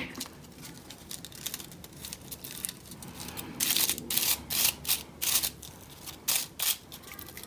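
Brown packaging paper rustling and crinkling as fringed strips are wrapped and squeezed round a small twig, in irregular handling sounds that are busiest in the middle.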